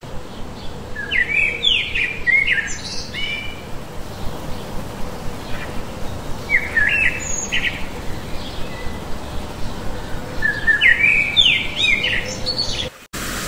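Birds singing in forest: three phrases of short, quick notes that step up and down in pitch, a few seconds apart, over a steady background hiss. The sound cuts off abruptly near the end.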